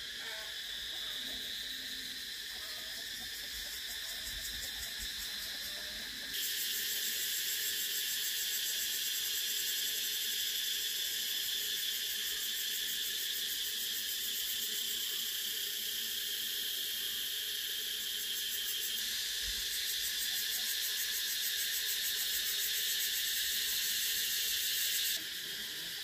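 Cicadas buzzing in chorus: a steady, high, rapidly pulsing drone. The buzz steps up louder about six seconds in and drops back abruptly near the end.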